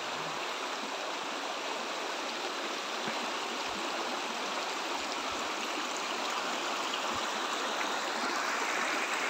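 Shallow rocky stream rushing and splashing over stones, a steady wash of water noise that grows a little louder near the end.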